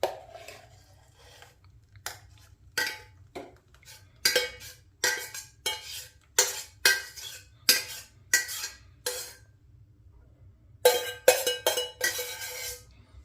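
Spoon scraping and knocking against a saucepan while cooked barley porridge is scooped out and served, a run of short strokes about one every half second or so, then a quick flurry of scrapes near the end.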